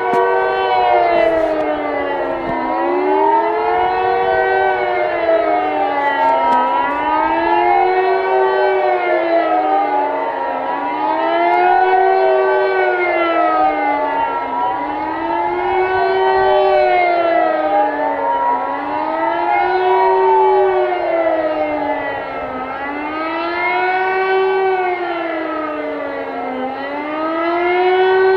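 Civil-defence sirens, a Kockum Sonics Delta-6-750 with an MSL-3, sounding the Swiss general alarm. Two wailing tones rise and fall about every four seconds, out of step so their pitches keep crossing.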